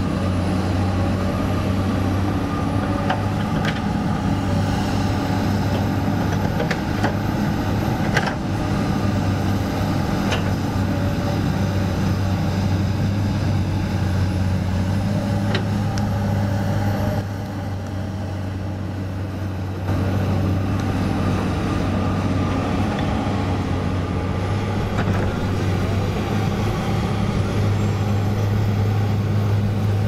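Komatsu PC200 hydraulic excavator's diesel engine running steadily under working load, easing briefly a little past the middle. A faint high whine rises and falls over it, and several sharp knocks come through.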